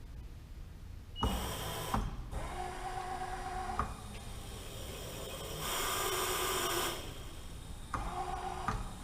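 Bridgeport Series II Special CNC vertical mill running a short programmed cycle: a motor whines in several separate moves, each starting and stopping abruptly. The first comes about a second in, a louder one in the middle, and a short one near the end.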